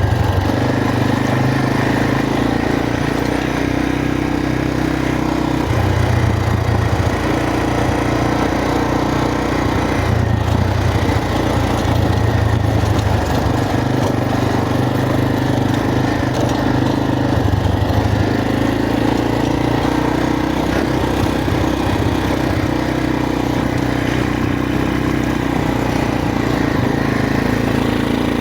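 Motorcycle engine running continuously, its pitch stepping up and down every few seconds as the throttle and load change.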